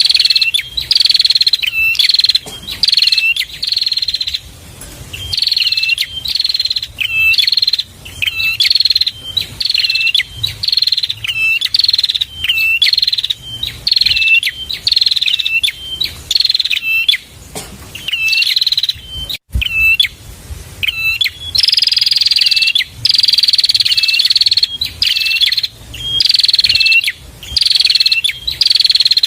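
Prinia (prenjak) song: loud, buzzy chattering phrases with short up-hooked notes, repeated about once a second, with a few longer drawn-out phrases in the second half.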